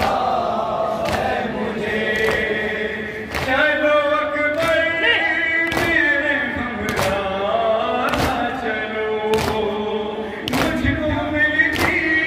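Male voices chanting a noha, an Urdu mourning lament, with a solo reciter leading and a group chorus. Steady thuds of matam, rhythmic chest-beating with the open hand, fall about once a second in time with the chant.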